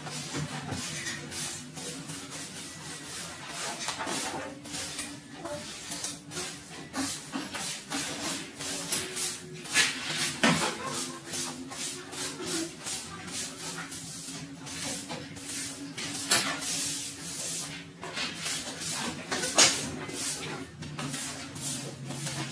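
Irregular scraping and rustling of dry cut grass and brush being worked by hand, with a faint steady low hum underneath.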